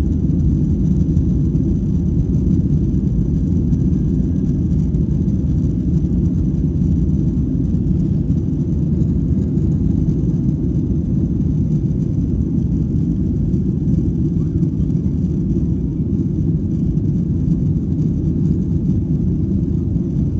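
Steady low roar of an airliner's engines and airflow heard from inside the passenger cabin, with a faint high whine that stops about eight seconds in.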